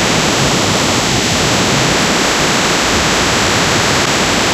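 Sound synthesized by Coagula from a detailed photograph, the picture's brightness turned into sound: a loud, steady wash of hiss-like noise with no clear tones. A detailed image gives this dense, featureless noise rather than a readable pattern.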